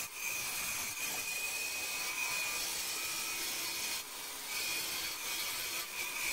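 Turning tool cutting the inside of a segmented pear-wood vase spinning on a wood lathe: a steady hissing scrape with a thin steady tone in it. The cut eases off briefly about four seconds in and again near the end.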